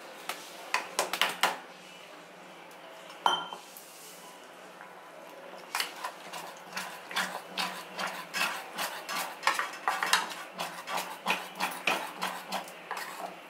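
Spoon stirring thick flour batter in a small stainless steel pot, clinking and scraping against the metal sides. There are a few clinks at first, a pause, then steady clinking about three times a second from about six seconds in.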